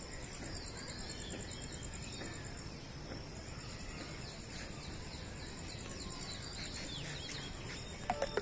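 A cricket trilling high and steady, pausing briefly about three seconds in, over many quick falling bird chirps and a low rumble. Near the end come two short, louder sounds.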